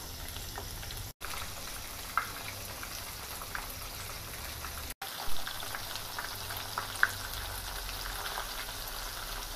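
Batter-coated chicken kalmas deep-frying in hot oil in a non-stick pan: a steady sizzle with scattered small crackles and pops as the pieces are turned with a perforated spatula.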